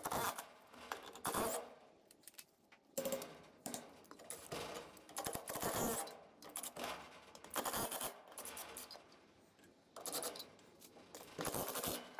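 Cordless impact wrench run in a series of short bursts, undoing the wheel bolts, with small metallic clinks of the bolts between bursts.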